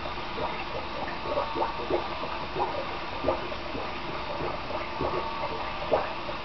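Water running and splashing in a bathroom sink, with small irregular splashes and knocks as a toy motorcycle is handled in the water.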